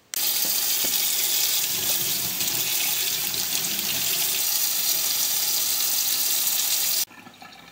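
Water running hard from a kitchen tap into a stainless steel sink, splashing over a hand and a hot-glue piece held in the stream. It cuts off abruptly near the end.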